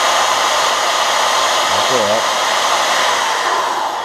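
Corded electric drill running steadily at speed, spinning an aluminium arrow shaft in its chuck while a rolled tube of sandpaper is worked inside the shaft. The motor winds down near the end.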